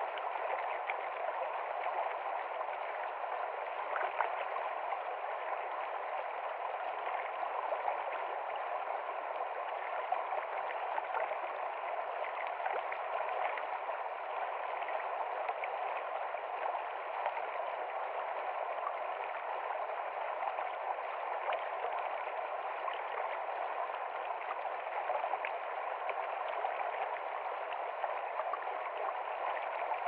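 Fast, shallow river water rushing over boulders in rapids, heard close to the surface: a steady, unbroken rush and splash with no rise or fall.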